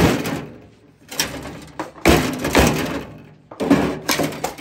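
Sledgehammer blows smashing a broken appliance: about six heavy impacts at uneven intervals, each dying away quickly.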